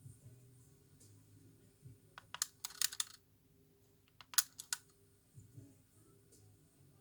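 Philips DCC134 portable DCC player: a faint steady mechanical hum, broken by two quick runs of sharp clicks, about two seconds in and again about four seconds in.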